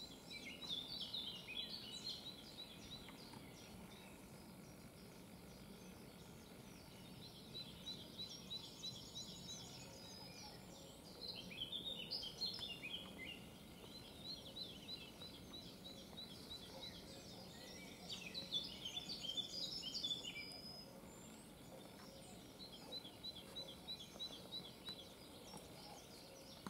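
Songbirds singing in woodland: short warbled phrases about a second in, around eleven seconds and around nineteen seconds, with fast runs of evenly repeated high notes in between, over a steady faint background hiss.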